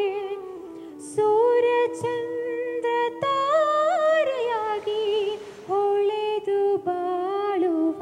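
A young woman singing solo and unaccompanied, holding long sustained notes. About halfway through her notes waver and turn in ornaments, with short breath breaks between phrases.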